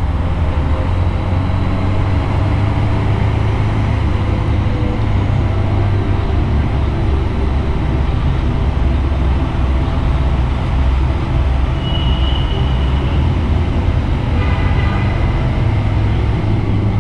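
Motorcycle engine and tyre noise at road speed inside a road tunnel, a loud steady low rumble.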